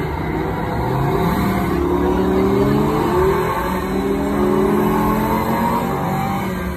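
Sports-car engine revving, played back through speakers when a foot pedal on an interactive display is pressed; the pitch climbs several times in a row.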